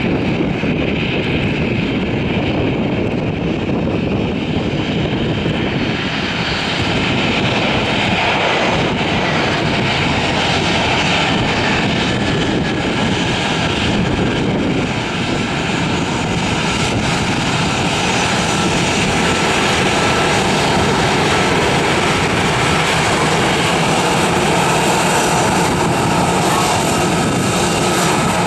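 Airbus A321 airliner's twin jet engines running at taxi power as it taxis past, a steady, loud engine noise with a thin whine riding on it.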